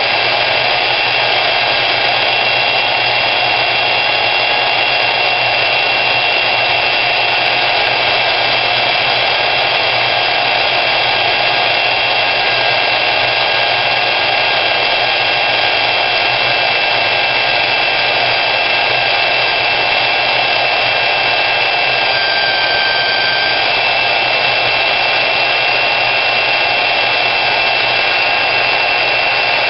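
Portable band saw running steadily under load as it cuts through the steel tube of a Dana 44 front axle: a constant motor whine over the noise of the blade in the metal. The whine shifts in pitch briefly about two-thirds of the way through.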